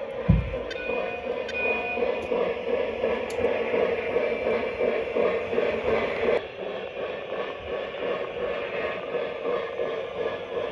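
Legacy-version O-gauge 0-6-0 model steam locomotive running on three-rail track: steady wheel and rail noise mixed with the locomotive's onboard speaker sounds. There is a low thump about a quarter second in.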